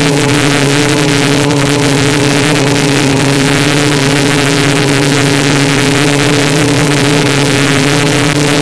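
Multirotor drone's brushless motors and propellers running steadily while it hovers in place, recorded close and loud by the onboard camera: a constant hum over a dense whir that holds level throughout.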